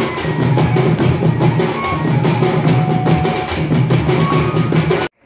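Live folk-dance drumming: several two-headed drums slung from the drummers' waists, beaten in a fast, steady beat, with a few short high held notes above. It cuts off abruptly near the end.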